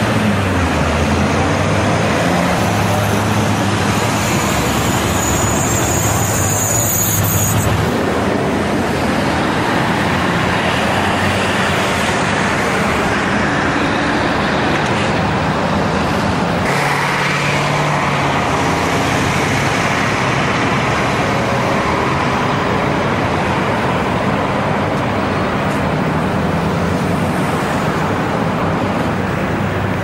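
Steady city street traffic: cars and trucks driving past, a continuous wash of engine and tyre noise.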